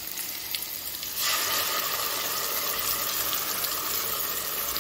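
Oil frying pumpkin pieces in a kadai with a faint sizzle. About a second in, a wet ground masala paste goes into the hot oil and the sizzling jumps to a loud, steady hiss.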